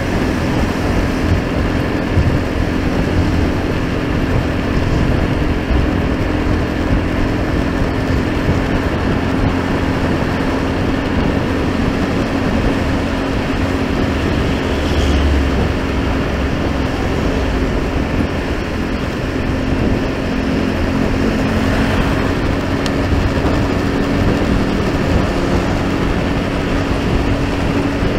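Steady road and engine noise of a vehicle travelling, with a constant low drone and no marked changes.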